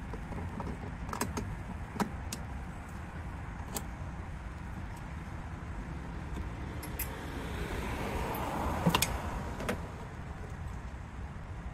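Scattered sharp metallic clicks and clinks of pliers and hand tools against the metal fittings of the brake booster and master cylinder while a rubber vacuum hose is worked loose. A short scraping rustle builds a little past halfway and ends in a quick cluster of clicks, over a steady low background rumble.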